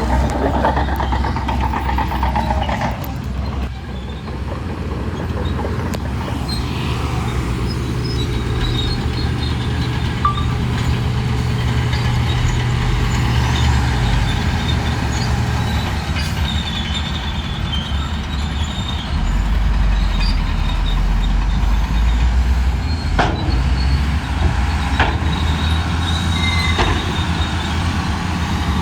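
Shantui crawler bulldozer's diesel engine running under varying load, its note dropping lower about halfway through. A couple of sharp knocks or clanks come in the last third.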